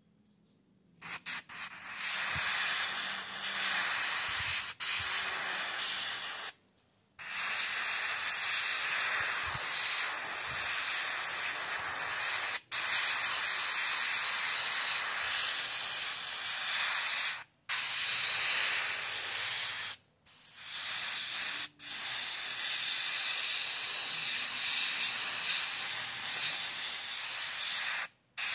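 Airbrush spraying a blue base coat onto a small plastic model seat: a steady air hiss that starts about a second in and runs in long stretches, cut off briefly several times as the trigger is let go.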